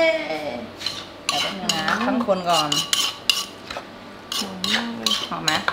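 A spoon clinking and scraping against a bowl as a cucumber salad is stirred and served, about a dozen irregular clinks.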